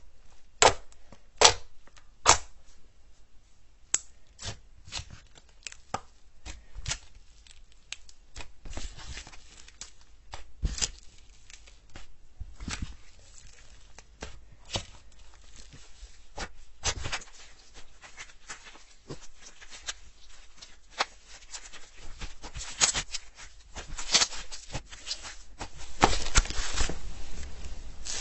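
Slime being handled by hand: an irregular series of sticky clicks, pops and crackles, a few loud snaps in the first couple of seconds and a denser crackling near the end.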